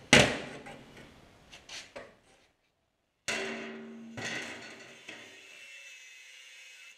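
A sharp metal bang on a workbench, the loudest sound, then a few lighter knocks. After a gap comes clattering with ringing metal that dies away, and near the end the faint steady whine of an angle grinder cutting a steel tube.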